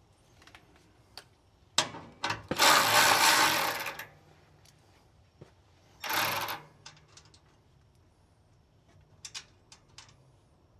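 Hand tools working on the camera bracket's mounting hardware: scattered sharp clicks and two bursts of mechanical rattling. The longer burst, about a second and a half, is the loudest sound.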